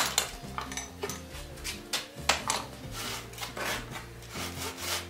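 Irregular clinks, knocks and scrapes of metal hand tools being picked up, set down and rubbed against a wooden sled runner on a workbench, over background music.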